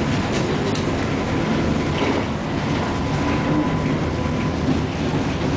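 Tram running along its rails, heard from inside the passenger car: a steady low rumble of wheels and running gear, with a faint steady whine and a few scattered clicks and rattles.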